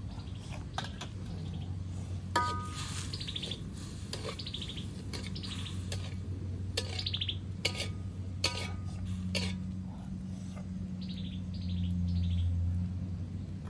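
Birds giving short, falling chirping trills, repeated many times, over the clinks and scrapes of a metal ladle in a wok; one clink about two and a half seconds in rings out. A steady low hum runs underneath and grows louder near the end.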